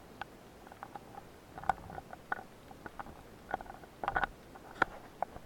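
Scattered sharp clicks and knocks heard underwater, coming thicker about four seconds in, from a speared fish and the diver's gear being handled against the camera.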